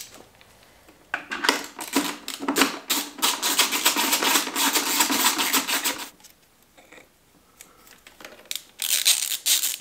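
Ratchet wrench clicking in a rapid run for about five seconds, then a shorter burst near the end, as bolts on a motorcycle are tightened.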